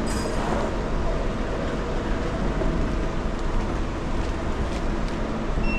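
Steady low rumble and hiss of an underground car park's background noise, with a short high electronic beep near the end from the parking payment machine.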